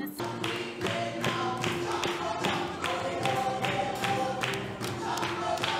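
Lively music with a steady beat of about two and a half beats a second under held notes.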